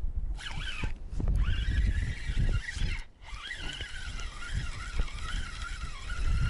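Spinning reel being cranked to wind in fishing line, its gears giving a wavering whine that rises and falls with the turning of the handle and pauses briefly twice, with wind buffeting the microphone underneath.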